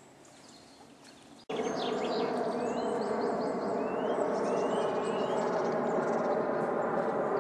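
A steady buzzing drone cuts in abruptly about one and a half seconds in and holds level, with birds chirping over it.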